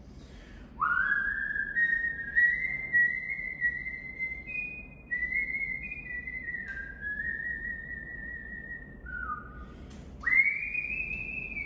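A person whistling a slow, wandering tune, with notes that slide up into pitch, the first about a second in and a higher one near the end.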